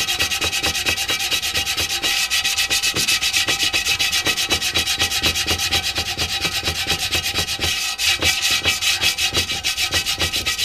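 Hand sanding block with sandpaper rubbed in fast, even back-and-forth strokes over cured JB Weld filler on a Yamaha FZR's aluminium wheel rim, knocking down the high spots of a dent repair.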